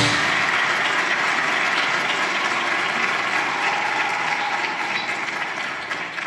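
Audience applauding, a dense even clapping that slowly dies down near the end.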